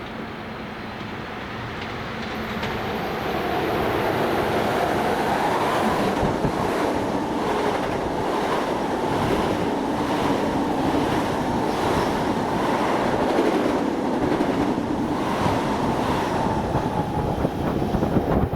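Long Island Rail Road train passing through the station, growing louder over the first few seconds into a steady rush of wheels on rail with regular clicks from the wheels over rail joints.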